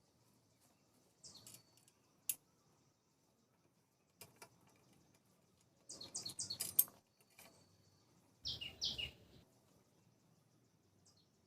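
Faint, scattered bird chirps: short, high, quickly falling notes in two small clusters, the second near the end, with a few faint clicks in between.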